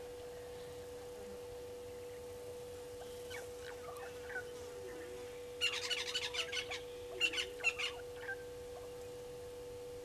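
Brown-headed parrots calling: a few faint chirps, then two quick bursts of high-pitched calls about halfway through, over a steady hum.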